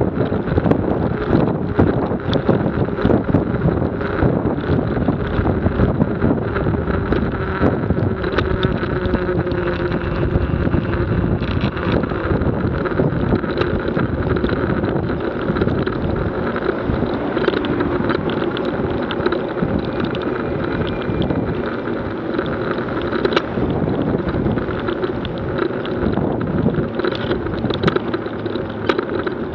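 Wind rushing over a vehicle-mounted action camera's microphone, mixed with road and engine noise from driving on a wet road, with many small taps and knocks throughout.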